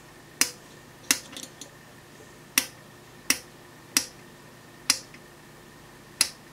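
Rotary switch of a resistance decade box clicking through its detents as it is stepped, about seven sharp clicks spaced unevenly, mostly under a second apart.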